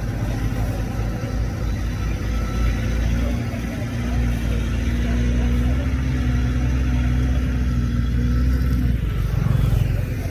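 Diesel engine of heavy earthmoving machinery running steadily, a low drone that grows stronger about four seconds in.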